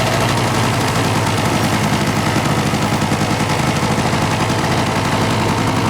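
Small vehicle engine running steadily under way, with a fast low putter.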